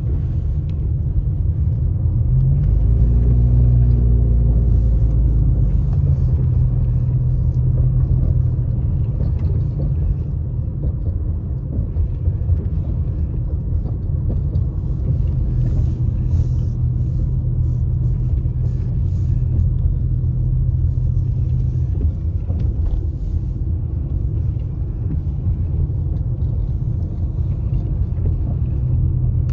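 Car driving, heard from inside the cabin: a steady low engine and road rumble. The engine note rises about two and a half seconds in as the car accelerates, then holds steady.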